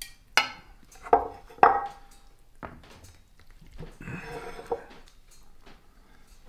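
Metal tongs and a serving spoon clinking against a ceramic plate and a skillet while pasta is served: three sharp clinks in the first two seconds, the last two ringing briefly, then a softer scrape of scooping in the pan about four seconds in.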